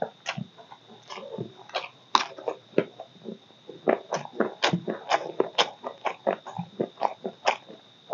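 Close-miked wet chewing and lip-smacking of a mouthful of rice and curry, many quick irregular smacks. A faint steady high whine runs behind.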